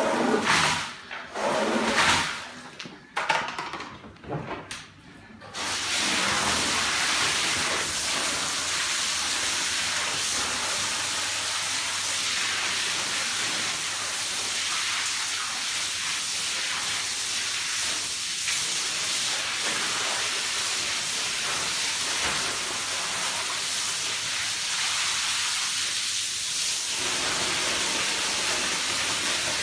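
Uneven swishing strokes of a long-handled brush scrubbing a soaked rug, then from about five seconds in a steady hiss of a water jet spraying onto the rug to rinse it.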